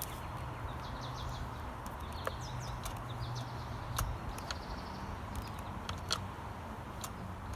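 Birds chirping repeatedly over a faint steady low hum, with a few light clicks and taps; the chainsaw is not running.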